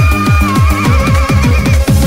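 Nightcore edit of an electronic dance-pop song: a fast, pitched-up beat with a heavy kick drum about four times a second under a high held note that wavers with vibrato.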